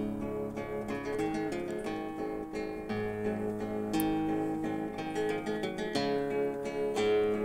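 Nylon-string classical guitar playing a waltz in the Chilean 'tercera alta' tuning, fingerpicked melody notes over ringing chords, with a fresh pluck about once a second.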